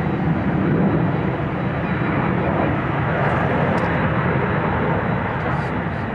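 Boeing 777-300ER's GE90 turbofan engines on final approach with the landing gear down, heard from the ground as a steady jet rumble.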